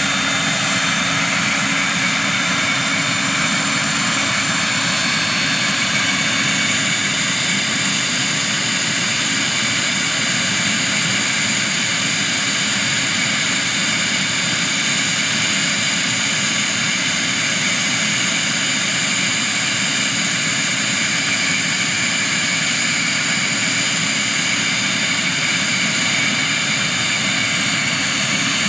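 Twin Pratt & Whitney Canada JT15D turbofans of a Cessna 551 Citation II running steadily: a loud rush of air with several steady high whines over it, holding the same pitch throughout.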